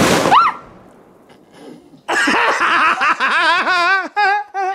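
A small homemade black-powder charge going off with one sharp bang that dies away within half a second. About two seconds later a man laughs loudly.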